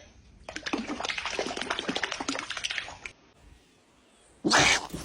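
Water splashing in a quick patter of small strokes for about two and a half seconds, then a brief loud rush of noise near the end.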